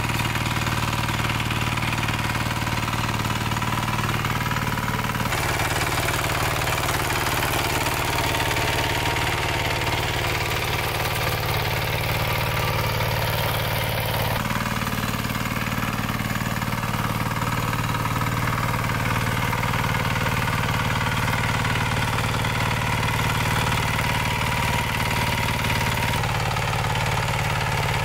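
A small engine running steadily at a low, even speed, its character shifting abruptly a few times.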